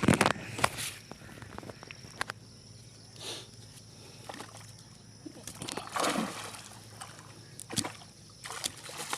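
Water sloshing and splashing in short irregular bursts, with a sharp knock right at the start.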